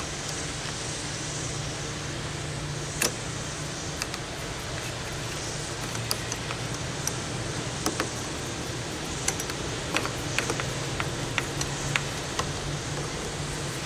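Scattered small clicks and taps from hand work on an RV door latch, with one sharper knock about three seconds in and a run of clicks in the second half, over a steady low hum and hiss.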